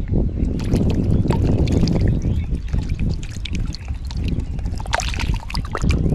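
Close water splashing and sloshing from a hooked catfish thrashing at the surface, with sharp splashes thickest about a second in and again near five seconds, over a steady low rumble.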